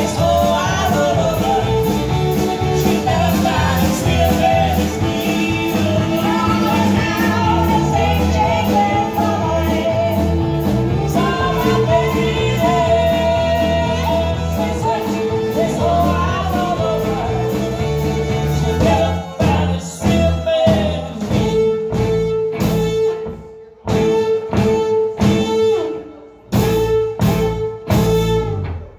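Live band playing a blues-rock song: a woman singing over electric guitar, bass and drums. A bit past halfway the band switches to short, stop-start hits with brief gaps between them, over a held note.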